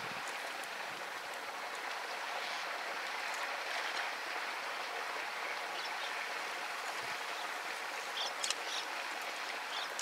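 Steady rush of flowing stream water, with a few short high chirps about eight and a half seconds in.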